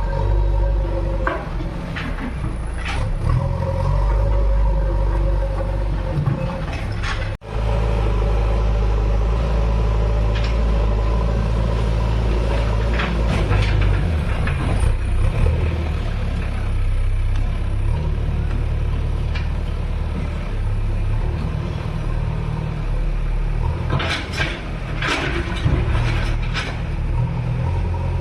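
JCB 3DX backhoe loader's diesel engine running steadily under work, with scattered clanks and rattles. The sound cuts out for an instant about seven seconds in.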